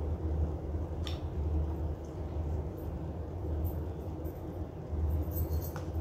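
A steady low rumble, with a few light clicks of a spoon against a plastic food container about a second in and again near the end.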